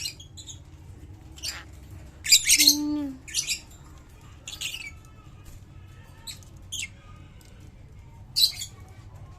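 Lovebirds giving short, shrill squawks: about half a dozen harsh calls at irregular gaps, the loudest a burst about two and a half seconds in.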